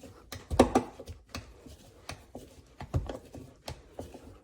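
Armrest screw being driven into a plastic car door panel, squeaky as it turns, with irregular clicks and knocks from the tool and the panel.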